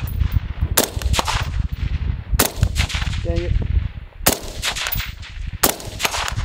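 Four suppressed 5.56 rifle shots from an IWI X95 Tavor bullpup fitted with an OSS HX-QD flow-through suppressor. They are fired one at a time, about one and a half to two seconds apart, and each shot has a brief echo.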